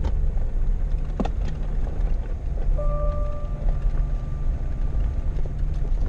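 Jeep driving slowly over a rough dirt track, heard from inside the cab: a steady low rumble of engine and tyres, with a single sharp knock about a second in.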